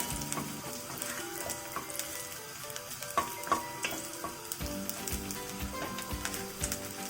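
Sliced garlic and dried red chilies sizzling in hot oil in a pan, stirred with a utensil that clicks and scrapes against the pan now and then.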